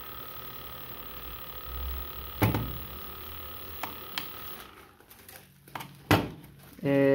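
4DRC M2 Pro drone's motors idling with the propellers spinning, a steady hum with a thin high whine, cutting out about four and a half seconds in as the motors are shut off. A few sharp clicks follow, and a short pitched tone sounds near the end.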